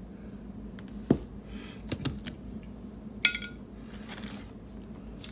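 Small objects handled on a tabletop among glassware: a few light knocks, then a sharp clink with a short ring just after three seconds in, followed by soft plastic-bag rustling.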